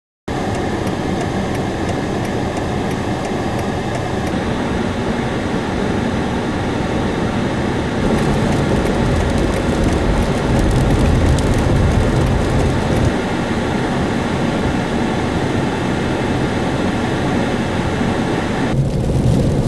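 Steady road noise of a car driving on a snow-covered road, starting abruptly, with a run of light ticks in the middle.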